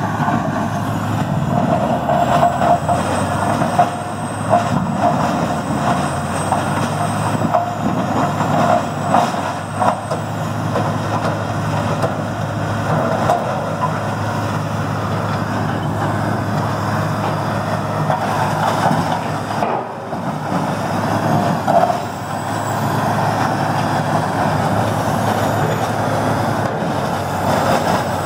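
Morbark 4600XL horizontal grinder, powered by a 1050 hp Caterpillar C27 diesel, running under load as it grinds wood: a loud, steady heavy engine hum under a dense din of wood being shredded, with scattered sharp knocks. The level dips briefly about two-thirds of the way through.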